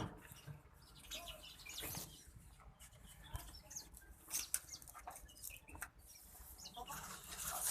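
Small birds chirping in short scattered calls, with soft clicks and rustles from the goats eating the jaggery remedy mix.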